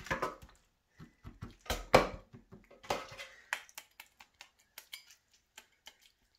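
A metal fork stabbing holes in raw lamb shanks, its tines clicking and scraping against a metal roasting tray in irregular taps, the loudest knock about two seconds in.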